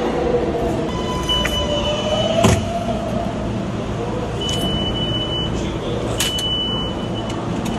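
Subway station din with a train's low rumble, and a high steady tone that sounds three times for about a second each. A sharp click about two and a half seconds in.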